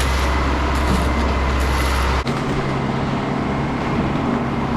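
Heavy diesel engine of the concrete pump truck running steadily during the pour. Its low hum changes abruptly about two seconds in.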